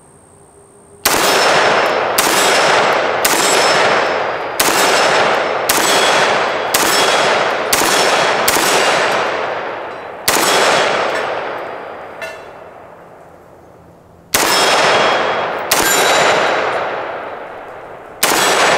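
AR-15 rifle in 5.56 NATO firing about a dozen semi-automatic shots, roughly one a second, each ringing out for about a second, with a pause of about four seconds before the last three. The rifle is being test-fired with its adjustable gas block set at position 9 to check that it cycles reliably.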